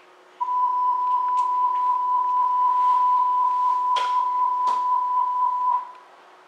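A steady electronic signal tone sounding on board a DT3-E U-Bahn train. It holds one pitch for about five seconds and then cuts off, with two sharp clicks near its end.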